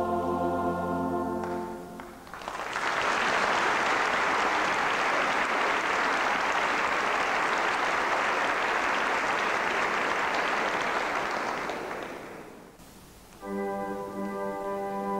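A mixed choir and church organ hold a final chord that ends a second or two in, followed by about ten seconds of audience applause that fades out. Near the end the organ sounds a new sustained chord.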